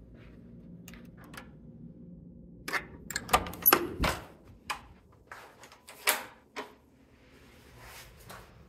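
Hotel room door being unlocked with a key card and opened: a quick run of sharp clicks and clunks from the electronic lock, lever handle and latch about a third of the way in, then a few more clicks, with one louder clack a little past halfway.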